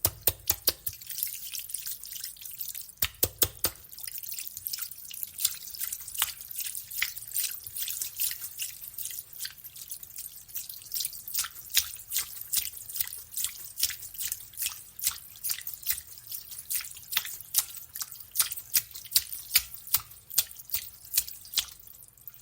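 Water dripping: a steady run of separate, sharp, high-pitched drops, several a second at uneven spacing, with a couple of duller low splashes near the start. The dripping fades out just before the end.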